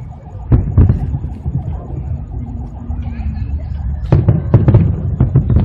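Aerial fireworks bursting over a steady low rumble. A couple of sharp bangs come about half a second in, then a rapid cluster of bangs follows between about four and five and a half seconds in.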